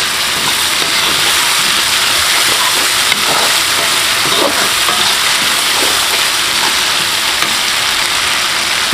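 Chili paste (balado) frying in hot oil in a pan, giving a steady, even sizzle.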